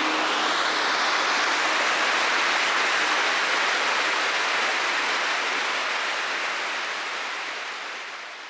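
Mountain river rushing over a stony bed: a steady, even roar of flowing water, fading out over the last few seconds.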